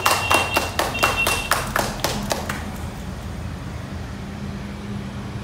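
A few people clapping their hands, irregular claps that die away about two and a half seconds in, leaving a steady low hum.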